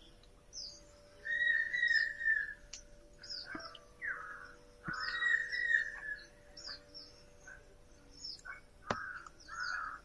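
Birds calling outdoors: repeated harsh calls and many short high chirps, with a few sharp clicks.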